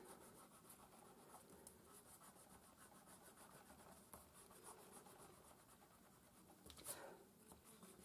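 Faint scrubbing of an eraser rubbing out pencil lines on paper, in quick repeated back-and-forth strokes, with a brief louder sound near the end.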